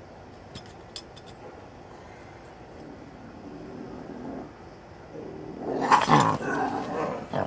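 Bobcat caught in a foothold trap growling: a low growl from about three seconds in, then a much louder rough growl about six seconds in that lasts over a second. It is the defensive growl of an angry, trapped wild cat.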